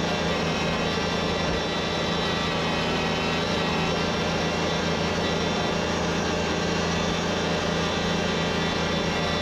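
XCMG wheel loader's diesel engine running at a steady speed, a constant even drone with no revving or knocks.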